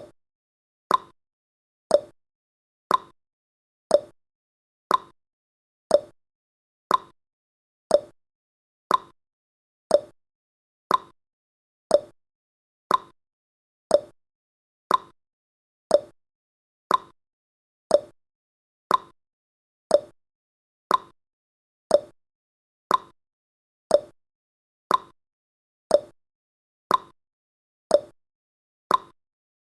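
Countdown timer's tick sound effect: one short, sharp tick every second, perfectly regular, with silence between ticks.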